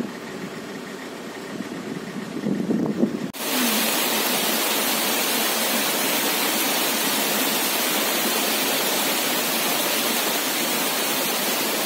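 Waterfall pouring over rocks close by: a loud, steady rush of water that cuts in suddenly about three seconds in, after a quieter, uneven low rumble.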